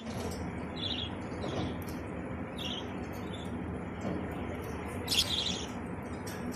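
Pet budgerigars chirping in their cage: short high chirps now and then, with a louder burst of chirping about five seconds in, over a steady low background noise.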